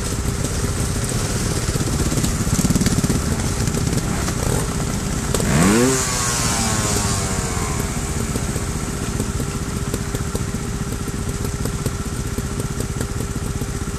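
Trials motorcycle engines idling steadily. About five and a half seconds in, one engine revs sharply up and falls back down as the bike tips over on the creek rocks, with a clatter.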